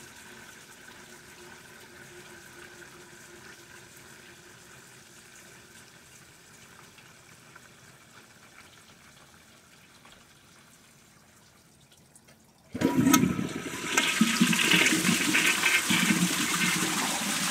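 Kohler Gleam low-flow toilet: a faint water hiss slowly dying away as the bowl settles, then about 13 seconds in a new flush starts suddenly, water rushing loudly into the bowl.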